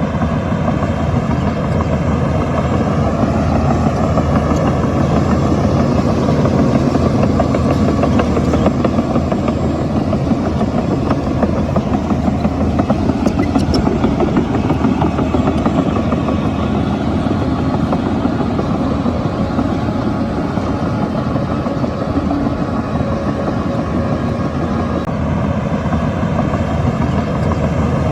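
Shantui bulldozer's diesel engine running steadily under load, with no break and no change in level.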